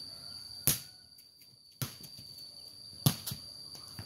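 A ball kicked and headed back and forth by barefoot players: three sharp slaps a little over a second apart. A steady high-pitched insect hum runs underneath.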